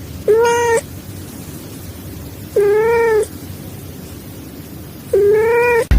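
A cat meowing three times, about two and a half seconds apart, each meow about half a second long and held at a steady pitch.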